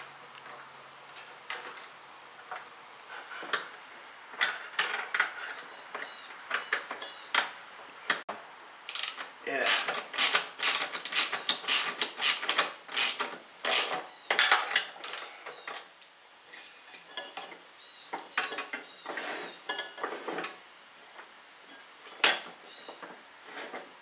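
Metal clicks and clinks of a wrench working the bolt and nut of an idler pulley on a mower deck's metal bracket. The clinks are scattered at first, come in a quick dense run through the middle, then thin out again.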